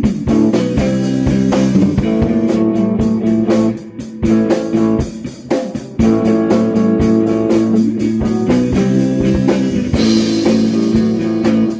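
Live rock band playing: guitar chords ringing over a drum kit, with a couple of brief drops in the playing partway through.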